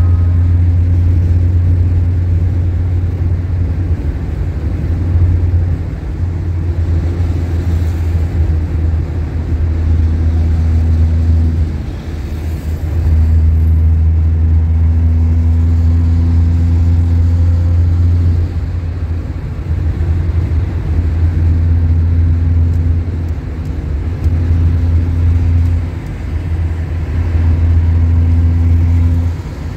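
Car engine and road noise heard from inside the cabin while driving on a highway: a steady low drone with a faint engine hum, dipping briefly a few times.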